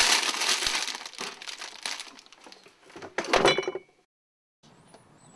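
Plastic snack bag crinkling as it is pulled open and handled. About three seconds in comes a brief loud crunch with a ringing clink, then the sound cuts off.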